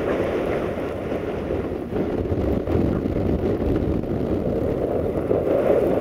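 Blizzard wind buffeting the microphone: a steady low rushing that grows a little louder near the end.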